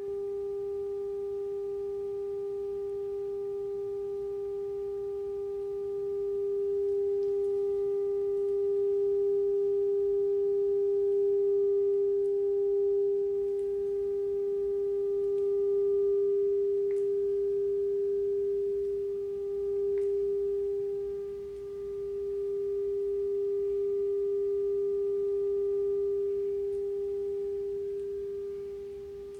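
Steady 400 Hz test tone played through computer speakers, one unbroken hum at a single pitch. Its loudness rises a few seconds in and dips briefly past the middle, as the listening position in the room changes.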